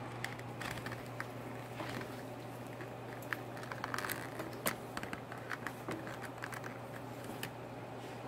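Scattered light clicks and ticks, irregular and of varying size, over a steady low hum.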